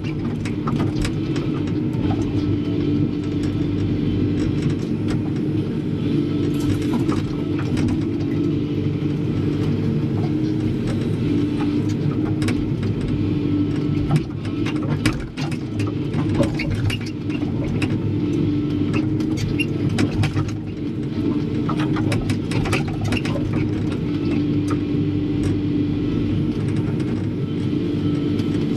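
Excavator's diesel engine running steadily, heard from the operator's cab, with scattered clanks and rattles as the arm and bucket work.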